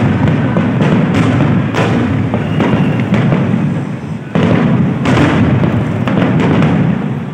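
Aerial fireworks bursting in quick succession: a dense run of booms and crackles with hardly a pause, which dips briefly and swells again about four seconds in.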